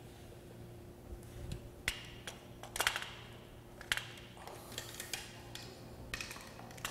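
Several scattered light clicks and taps, with a brief rustle around the middle, from plastic tubing, small fittings and cable being handled, over a faint steady hum.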